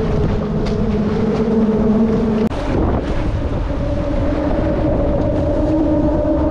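Wind rushing across the microphone over open water, with a steady engine drone underneath. The drone's pitch jumps higher suddenly about two and a half seconds in.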